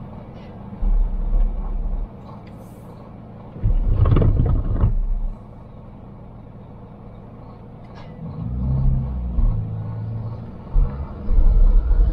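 Steady road noise of a small car driving along a highway, with low rumbling that swells up and dies away several times; the loudest swell comes about four seconds in.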